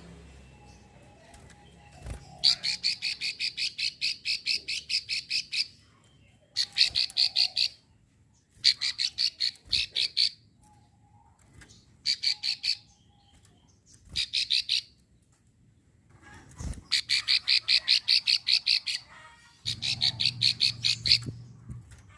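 Prinia giving its clicking call, a fast series of sharp, evenly spaced notes at about eight a second. It comes in about seven bursts of one to three seconds, separated by short pauses.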